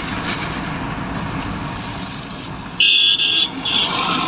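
Steady road noise of a moving car heard from inside the cabin. About three seconds in, a high-pitched vehicle horn honks twice in quick succession, each honk about half a second long.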